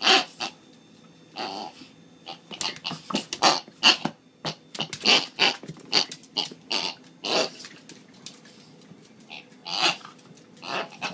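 A miniature pinscher at play with a little pig: a run of short, sharp animal noises, several a second in spells, with a pause about eight seconds in.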